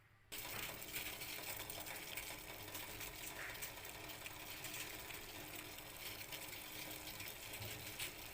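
Water with whole spices boiling in a pot on a gas stove: a faint, steady bubbling and hiss that starts suddenly just after the beginning.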